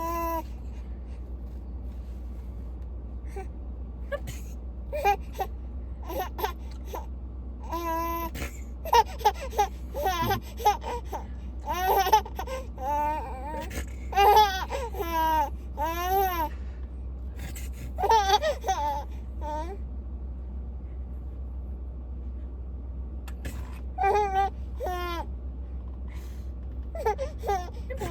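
Baby laughing in repeated bursts of giggles and squeals that rise and fall in pitch. The laughter comes in a long run through the middle, pauses, then starts again near the end.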